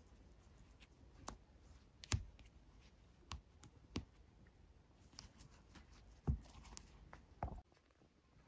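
Quiet handling of nylon paracord being pulled tight at a metal belt buckle, with half a dozen short sharp clicks and taps, the loudest a little after two seconds and after six seconds. The rustle falls quieter near the end.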